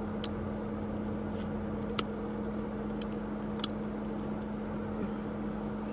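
Car engine idling, a steady even hum with a few faint sharp clicks over it.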